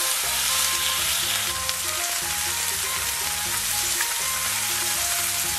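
Pork belly slices and beef steaks sizzling steadily on a hot teppanyaki iron griddle, with light background music.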